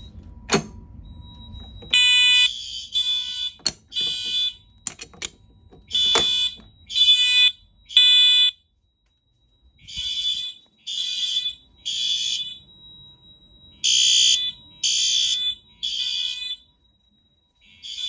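Fire alarm horn-strobes (System Sensor SpectrAlert Advance P4R, Wheelock MT and an FCI multitone horn-strobe) sounding the temporal-three evacuation pattern: three short horn blasts, a pause, then three more, starting about two seconds in after a few sharp clicks. A faint steady high tone runs beneath the blasts.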